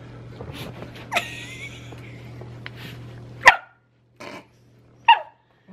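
A small dog barking sharply, loudest twice, about three and a half and five seconds in, with a short rising whine about a second in. He is reacting to seeing himself on the camera's screen.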